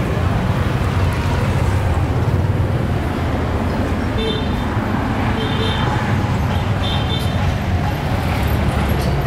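Busy street ambience: steady engine rumble of motor traffic with a haze of background voices, and three short high beeps about four, five and a half and seven seconds in.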